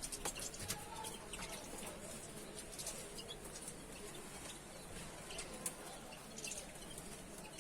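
Small cage birds chirping: short, high calls scattered throughout, with a few light clicks.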